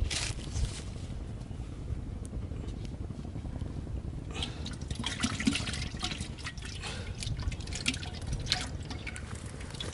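Water splashing and dripping as a live eel is put into a pot, with a run of small splashes and drips from about four seconds in, over a steady low rumble.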